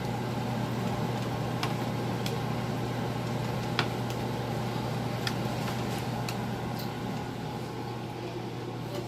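Steady hum of a running kitchen appliance fan, with a few light clicks and taps scattered through it.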